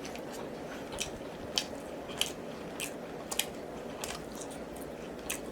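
A person chewing braised oxtail meat with the mouth open close to the microphone: wet smacking clicks every half second or so.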